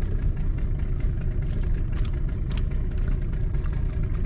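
Fishing boat's engine running at idle: a steady low rumble, with a few faint ticks over it.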